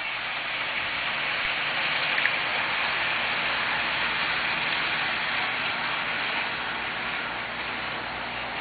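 HO-scale model train running along the track: a steady rushing hiss of wheels on rail and motor that swells over the first couple of seconds and eases slightly near the end.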